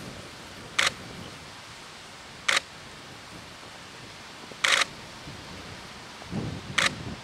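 Camera shutter firing four times, about two seconds apart, each a short sharp click over a steady faint hiss, with a brief low rumble just before the last click.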